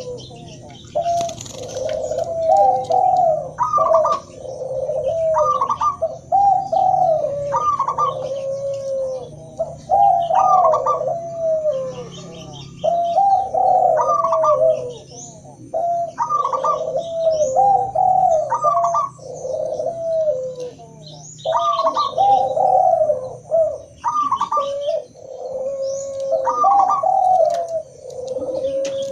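Zebra doves, spotted doves and Barbary doves cooing together in repeated bubbling phrases, a new phrase about every two seconds, with faint high chirps above them.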